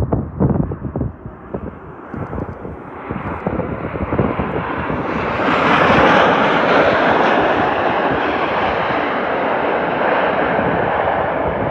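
Jet noise of a landing Boeing 737-800 with its CFM56 turbofans, building from about three seconds in to a loud, steady peak about halfway through. Wind buffets the microphone at the start.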